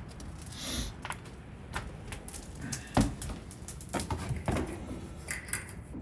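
Irregular light clicks and knocks of movement inside a wooden pigeon loft, over a low background hum.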